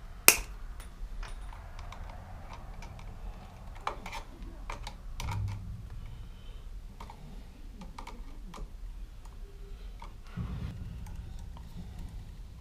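Pliers and wire strippers working copper wire onto a wall switch: a sharp snap just after the start, then scattered small clicks and taps of the tools on wire and metal.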